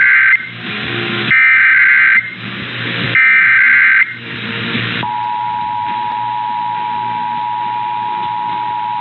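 Emergency Alert System SAME header: loud, roughly one-second bursts of screeching two-tone digital data about a second apart, the end of one burst and then two more, with hiss between them. About five seconds in, the steady two-tone EAS attention signal begins and holds.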